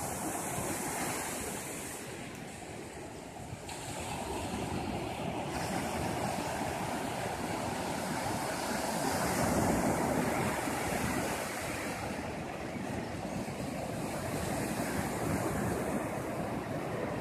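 Sea surf: small waves breaking and washing up a sandy beach, a steady rushing wash that eases and swells as the waves come in.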